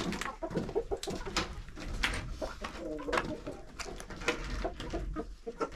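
Domestic hens clucking softly and repeatedly among themselves while they peck grain feed from a tray, with quick sharp taps of their beaks.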